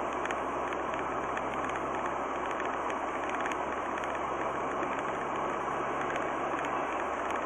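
Steady road and engine noise of a moving car heard from inside the cabin, with a faint low engine hum that fades in and out.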